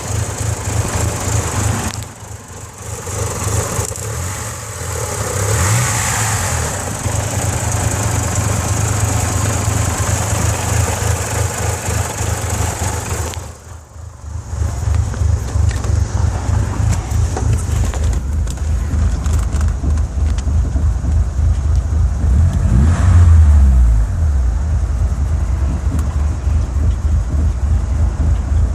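Mitsubishi 4G64 inline-four engine, converted to 4G63 spec, running at a rough idle. About three-quarters of the way through, the engine speed rises briefly and falls back.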